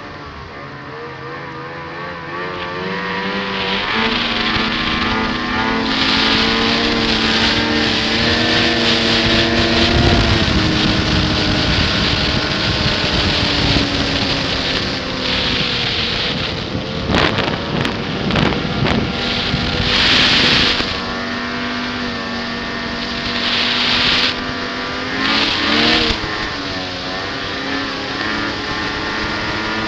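Snowmobile engine running under way, its pitch dropping at the start, climbing about four seconds in and then rising and falling with the throttle. Surges of rushing noise come and go, with a few sharp knocks about halfway through.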